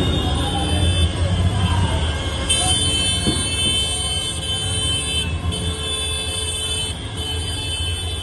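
Dense street crowd with vehicle engines rumbling low among the people, and a high, steady horn-like tone sounding twice: once for nearly three seconds starting about two and a half seconds in, then again briefly after a short gap.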